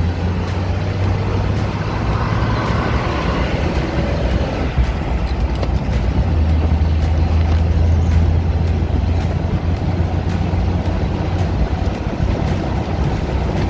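1985 Jeep CJ7 under way, heard from inside: its 4.2-litre straight-six engine drones steadily under road noise. The drone grows stronger about six seconds in and eases again near the end.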